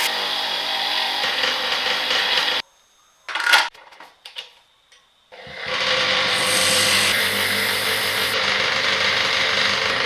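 A power tool running steadily on metal work, stopping abruptly for a few seconds with a couple of light knocks, then spinning back up and running steadily again.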